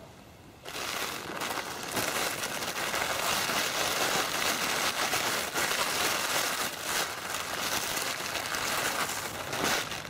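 Close rustling and crinkling of a bag being handled, starting sharply about a second in and going on steadily, as groundbait is got out by hand.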